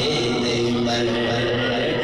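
A man's voice chanting an Urdu manqabat in a melodic recitation, holding long notes.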